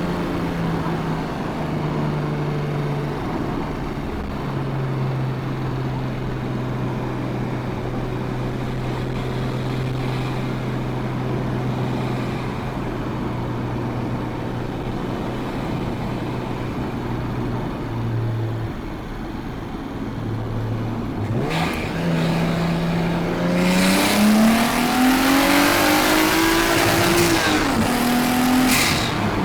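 Nissan Skyline R34 GT-T's turbocharged 2.5-litre straight-six, through a full exhaust system, cruising at steady revs. About three quarters of the way in it accelerates hard: the pitch climbs and the sound grows louder with a rushing edge. Near the end the revs drop sharply, as at an upshift.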